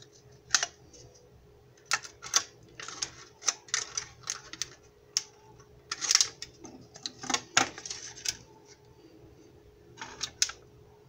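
Scissors snipping through a thin plastic cup: a run of sharp, irregular snips and crackles of plastic. A couple of sharp taps follow near the end as a phone is set onto the cup.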